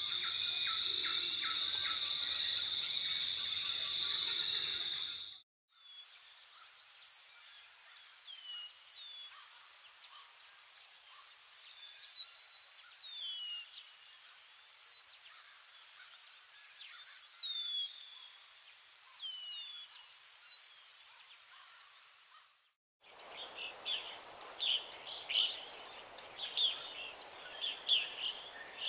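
Three stretches of wild nature sound joined by abrupt cuts. First a steady, loud insect drone with chirps. Then a fast, even insect pulsing with birds giving short falling whistles over it, and at the end birds chirping over a rushing hiss.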